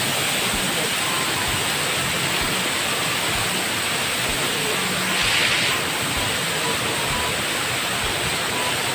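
Waterfall rushing: a steady, even noise of falling water, briefly louder and hissier a little past the middle.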